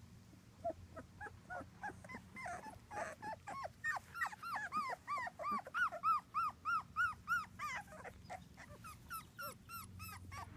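Two-week-old British Labrador puppy squeaking: a long run of short, high squeaks that rise and fall in pitch, a few a second, sparse at first, coming faster and louder in the middle, then thinning out near the end.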